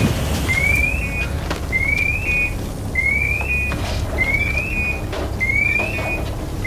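Electronic alarm sounding over and over: a short rising tone followed by a quick double beep, repeating about every 1.2 seconds, over a steady low rumble.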